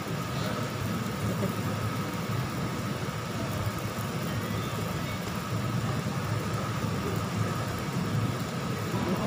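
Steady low hum and rush of a ventilation fan, such as the grill table's overhead extractor hood, with a faint steady whine above it.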